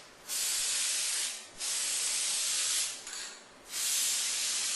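Aerosol can of dry coating lubricant sprayed in three hissing bursts of about a second each, through mesh chair fabric onto PVC pipe, applied to stop the pipes squeaking where the fabric twists on them.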